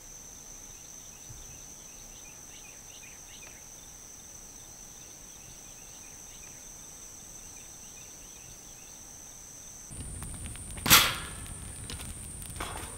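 An insect's steady high-pitched trill with faint chirps beneath it. About ten seconds in it gives way to a campfire burning, with one sharp knock about a second later.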